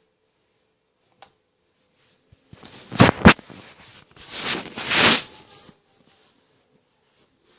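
Borax slime being squeezed and worked by hand, making a run of strange noises for about three seconds, loudest about three seconds in and again near five seconds.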